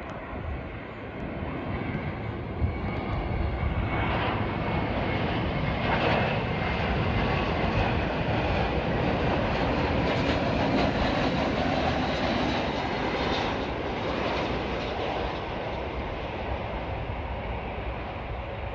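Jet engines of an American Airlines Airbus A321 on final approach, a steady rushing noise that swells about four seconds in, stays loud for about ten seconds as the plane flies past, then fades.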